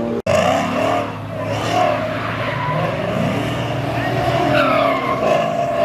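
A car engine revving hard and rising in pitch as the car accelerates away, with crowd voices under it. The sound drops out for an instant just after the start.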